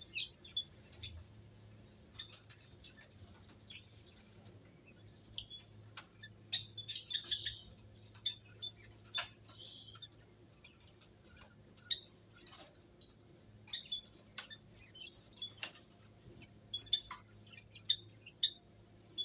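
Small birds giving short, sharp chirps, scattered irregularly and sometimes in quick clusters.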